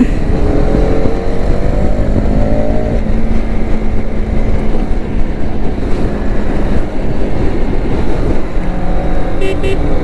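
Motorcycle engine running under way, its pitch rising over the first few seconds as it accelerates, then holding steady, with heavy wind rush on the microphone.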